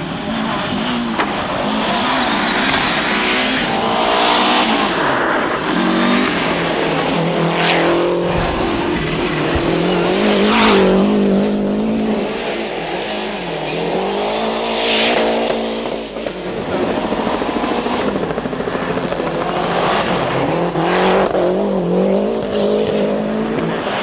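Group A Lancia Delta rally cars' turbocharged 2.0-litre four-cylinder engines at full throttle on stage, the pitch climbing and dropping sharply with each gear change and lift, with a few sharp bursts of noise cutting through.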